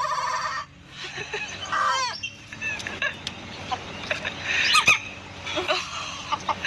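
An Ayam Ketawa (laughing chicken) rooster's crow that cuts off less than a second in, followed by chickens clucking and calling in short rising and falling notes. A sharp click comes about five seconds in.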